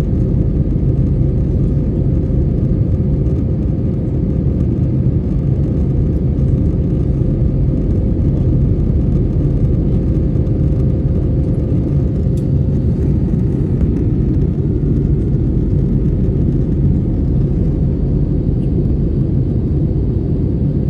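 Airbus A321neo jet engines and airflow heard from inside the cabin as a steady, unbroken drone while climbing after takeoff, with a steady hum running through it.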